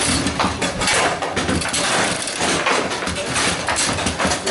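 Table football in play: rods sliding and clacking in their bearings and the ball knocking against the figures and walls. Behind it runs a continuous clatter of many other tables in play in the hall.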